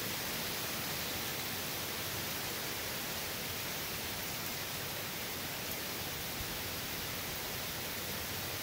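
Hurricane rain and wind: a steady, even hiss that does not let up.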